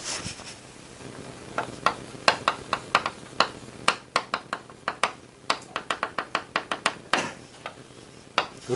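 Chalk writing on a chalkboard: a quick run of sharp taps and short strokes as characters are written, stopping about seven seconds in.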